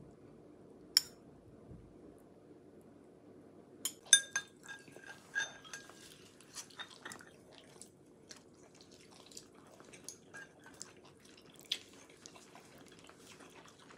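Dishes and kitchen utensils clinking and tapping. A single sharp click comes about a second in, then a busy run of clinks from about four seconds in, some ringing briefly, thinning out to occasional taps.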